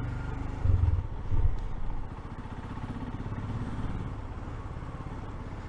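Royal Enfield Himalayan's single-cylinder engine running while riding, a steady low rumble with two brief louder surges about a second in.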